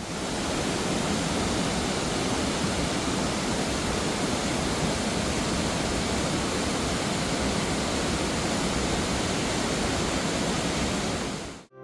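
River water rushing and splashing over rocks: a steady, full rush of flowing water with no breaks.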